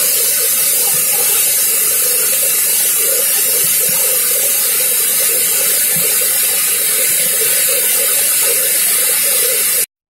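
Dhuandhar Falls, the Narmada River's heavy flow rushing steadily over the falls into a rocky gorge. The sound cuts off suddenly just before the end.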